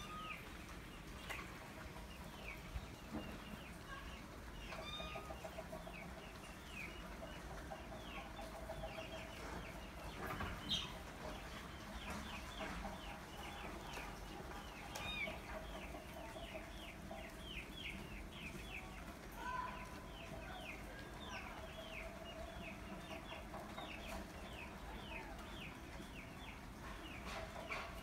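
Chickens: chicks peeping rapidly in short high falling notes, with a hen's lower clucking coming in at times.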